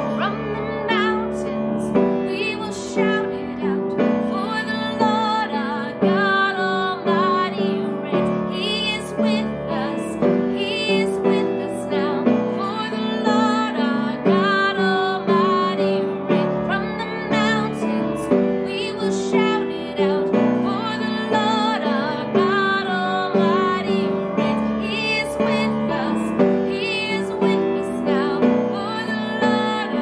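A woman singing a Christmas worship song to piano accompaniment, her held notes wavering with vibrato.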